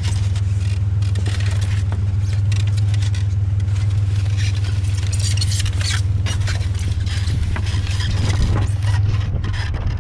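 Truck engine running steadily with a constant low drone, heard from inside the cab, with irregular rattles and clicks over it.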